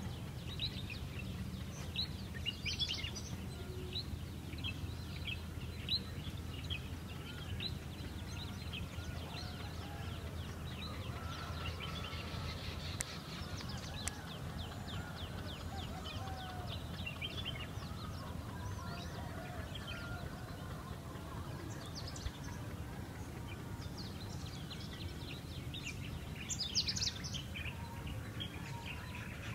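Wild birds chirping and calling from the hillside scrub: many short high chirps and a few whistles throughout, with louder clusters about three seconds in and near the end, over a low steady rumble.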